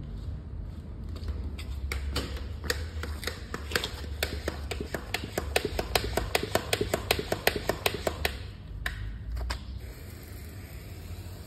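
A hand-pump pressure sprayer of wheel cleaner being pumped up: a quick run of sharp clicks, about four or five a second, for several seconds. About ten seconds in, a steady hiss of fine spray starts onto the wheel.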